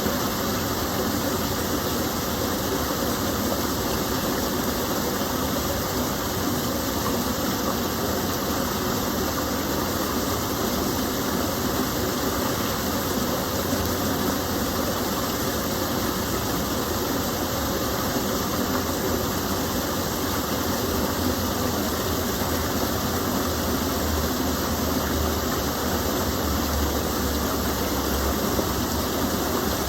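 Water of a gentle stream falling and flowing, a steady, even rushing that never changes.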